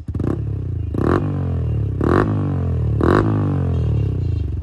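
Yamaha R15's single-cylinder engine revved in four sharp blips about a second apart through an aftermarket silencer, the revs falling back between blips and dropping to idle near the end.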